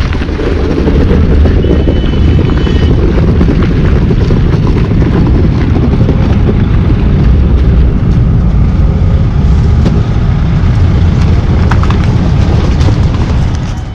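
Loud steady low rumble of a bus's diesel engine idling, mixed with wind buffeting the microphone.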